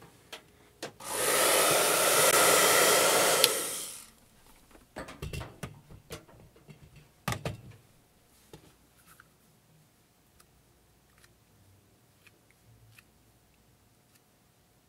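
Handheld electric hot-air blower running for about three seconds, heating the adhesive rubber grip wrap so that it softens and bonds to the pistol's frame. It starts about a second in and cuts off suddenly. It is followed by a few knocks and clicks as the pistol is handled.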